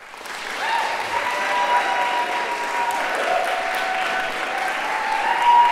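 Audience applause that breaks out as the piece ends and builds within the first second, with held cheering voices over it.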